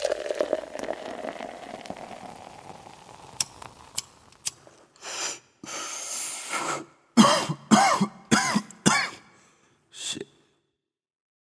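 A person coughing: a couple of coughs, then four loud coughs in quick succession and one last cough. Before them comes a few seconds of a fading hiss with a few sharp clicks.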